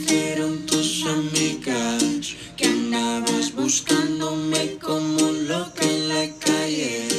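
A song playing as background music, with plucked-string parts.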